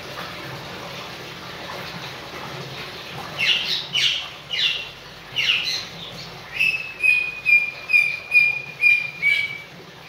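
Senegal parrot whistling: four downward-sliding whistled calls, then a run of about seven short level whistles, two to three a second.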